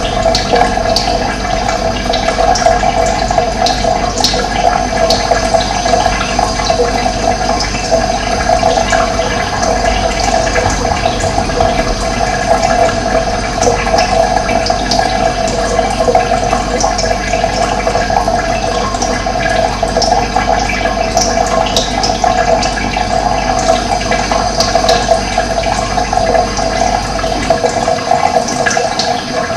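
Steady rushing of running water, with short high bird chirps scattered through it.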